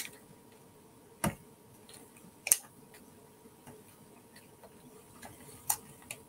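A few sharp clicks and faint taps at irregular intervals: small craft embellishments and supplies being picked up and set down on a work table. The loudest clicks come about a second and two and a half seconds in.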